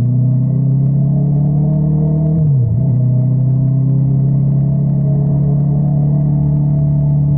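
Honda CBR650R inline-four running through an Akrapovič exhaust. The note climbs slowly, dips sharply for a moment about two and a half seconds in, then holds steady.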